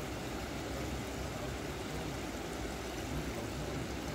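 Steady rush of water flowing through a concrete spillway's baffle blocks.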